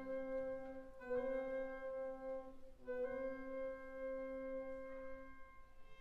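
Background music: slow, held notes, changing about a second in and again about three seconds in.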